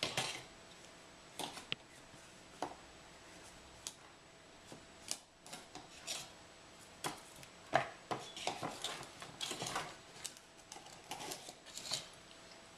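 Irregular clinks, taps and scrapes of a measuring cup and utensils against a mixing bowl as powdered hot chocolate mix is scooped and poured. The sounds come thicker in the second half.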